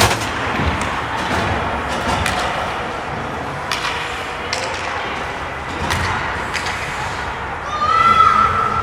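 Ice hockey game in an arena: a steady din of crowd and rink noise with scattered sharp clacks and knocks of sticks, puck and boards. About eight seconds in, a steady high tone sounds for about a second.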